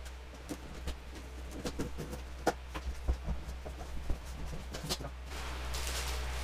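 Packaging being handled while a monitor box is unpacked: a run of irregular clicks, taps and rustles, over a steady low hum.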